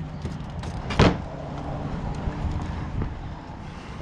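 A plastic truck grille being picked up and handled, with one sharp knock about a second in and lighter clicks after. A steady low hum runs underneath.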